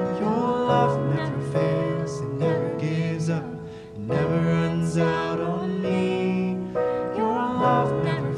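Live worship song: an acoustic guitar strumming and a keyboard piano playing chords, with a woman and a man singing the chorus over them.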